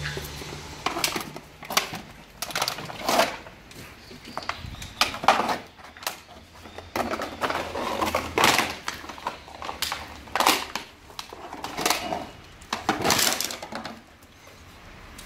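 Dogs playing rough together: short barks and yelps at irregular intervals, with scuffling and clatter in between.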